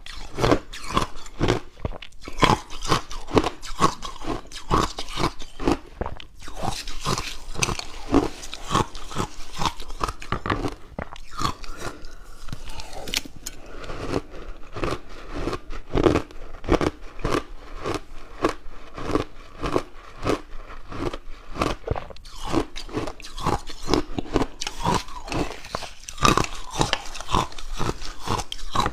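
Frozen purple ice being bitten and chewed, a quick, irregular run of crisp crunches several times a second.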